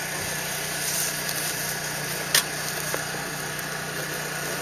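Utility knife slitting the tape on a cardboard carton, with a sharp click about two seconds in, over a steady background hum.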